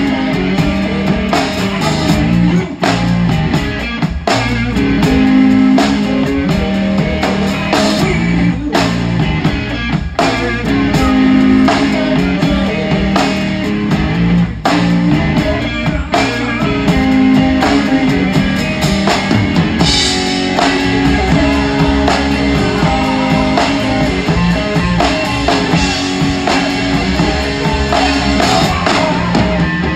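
A rock trio playing live, heard close at the drum kit: a big kit with a 26-inch bass drum and large ride cymbals beaten hard, with frequent cymbal crashes, over the band's sustained chords.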